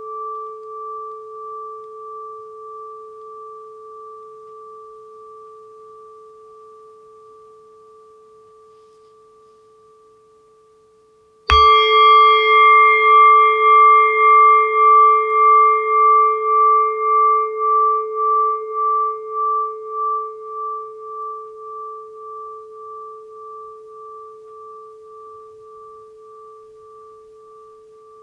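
Singing bowl ringing with a wavering, pulsing tone as an earlier strike fades away; about a third of the way in it is struck again, sharply, and rings on with the same pulsing wobble, slowly dying away.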